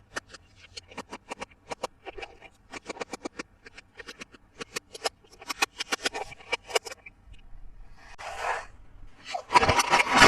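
Hard plastic toy parts clicking and tapping in quick clusters as they are handled, then a short rustle and loud crinkly scraping of packaging near the end.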